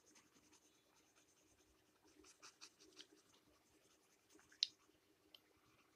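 Faint scratching of quick back-and-forth shading strokes on paper, with a single sharp tick about two-thirds of the way through.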